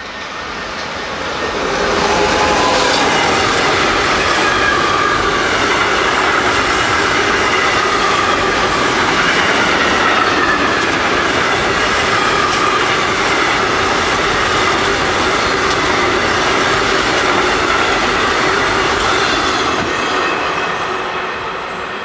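A long freight train of tank wagons, hauled by an electric locomotive, passes close by. The wheels rumble and clack on the rails, with wavering high-pitched tones over the noise. It builds quickly over the first couple of seconds, holds steady, and fades as the last wagons go by near the end.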